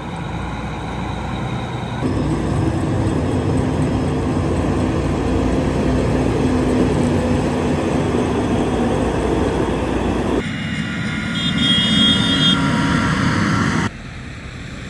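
Diesel engines of large John Deere farm machines, an 8335R tractor and an S780 combine, running with a steady hum. The sound is heard in short clips that cut off abruptly about 2, 10 and 14 seconds in; the third clip has a high whine over the engine.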